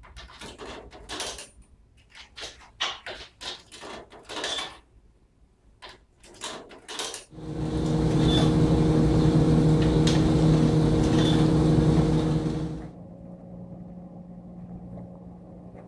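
Stacked coin-operated laundromat dryer: a run of short clicks and knocks as its control panel is worked, then, about seven seconds in, the tumbling drum running with a loud steady hum for about five seconds. This cuts off abruptly to a fainter steady low hum.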